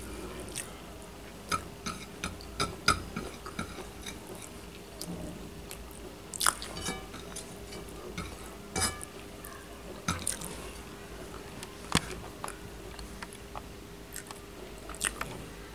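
Eating by hand at close range: about a dozen scattered sharp clicks and wet smacks, spread irregularly, over a faint steady hum.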